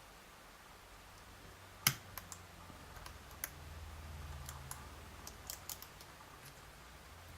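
Small sharp clicks of a lock pick working the pins of a JIS 5200 nine-pin pin-tumbler lock. One louder click comes about two seconds in, followed by a scattering of lighter ticks over a faint low hum.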